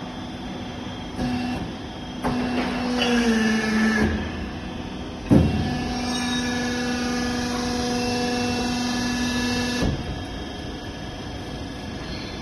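Hydraulic steel bending machine running: its motor hums steadily, the pitch sagging briefly under load, with one loud clank about five seconds in, and the hum cuts off near the end.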